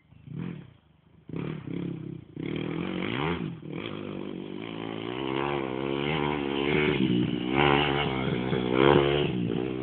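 Dirt bike engine revving up and down as the rider works the throttle, its pitch wavering. The sound is faint and broken at first and runs steadily from about two and a half seconds in. It is loudest about eight to nine seconds in.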